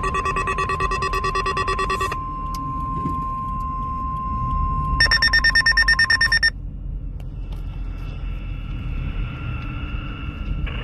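NOAA Weather Radio warning alarm tone, a steady high tone about 1 kHz, sounding in a weekly test. For the first two seconds other steady tones are layered over it. About five seconds in, a loud rapid electronic beeping joins for a second and a half, and the alarm tone stops as the beeping ends.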